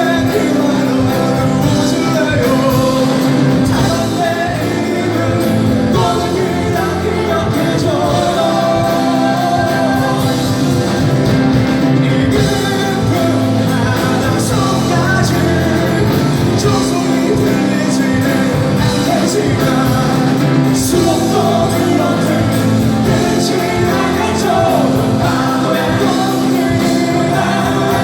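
Rock band music with singing, the band playing loud and steady.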